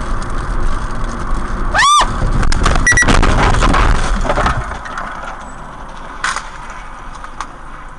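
Car interior road and engine noise picked up by a dashcam microphone while driving. About two seconds in there is a short tone that rises and falls, followed by a louder noisy stretch that drops away about halfway through.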